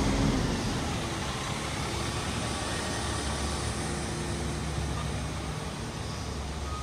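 FDNY fire truck's diesel engine running with a steady low rumble, slowly getting quieter.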